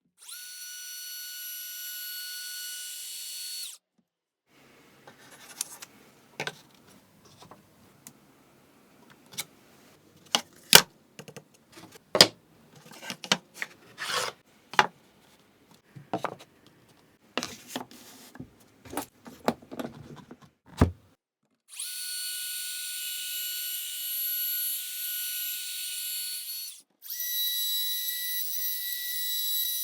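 A small power tool motor whines steadily for a few seconds. A long stretch of sharp wooden clicks, knocks and taps follows as pieces are handled and set. The tool then runs again for about five seconds, changing to a higher pitch near the end.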